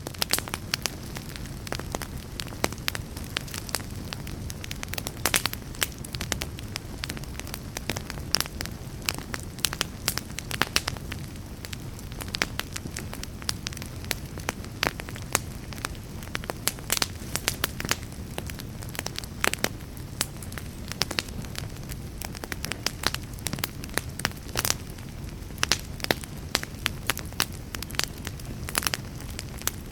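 Wood fire crackling in a fireplace: many irregular sharp pops and snaps over a steady low hiss and rumble of burning.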